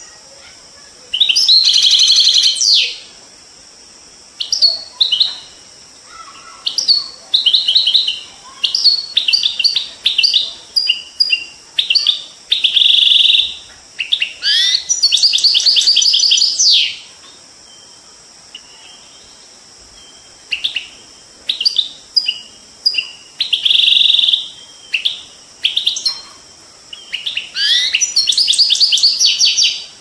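European goldfinch singing: bouts of fast twittering and buzzy trills in phrases of one to a few seconds with short pauses between, over a steady hiss of running water.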